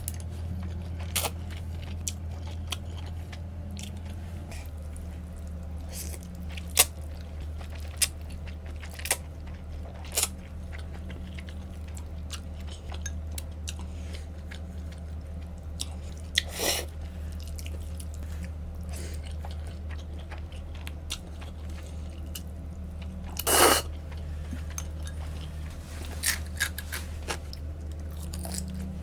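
Close-miked eating of black bean noodles (jjajangmyeon): chewing and bites with scattered sharp clicks and crunches, and two longer, louder noisy bursts about halfway and three-quarters through, over a steady low hum.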